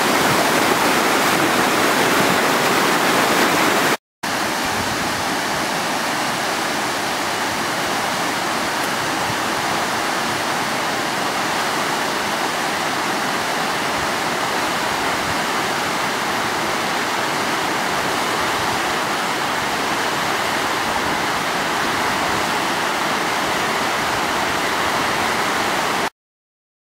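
Whitewater river rapids rushing over rocks, a steady, even noise. It breaks off briefly about four seconds in and returns slightly quieter. It cuts off suddenly near the end.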